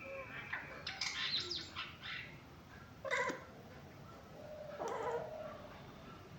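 A cat making short, pitch-sweeping calls in three bouts: a cluster about a second in, a short loud call just after three seconds, and another around five seconds.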